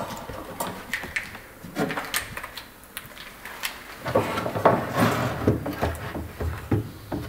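Small screws and a metal drawer runner clicking and knocking as they are handled. About four seconds in, a cordless drill-driver runs in short bursts, driving small screws through the runner into the cabinet side.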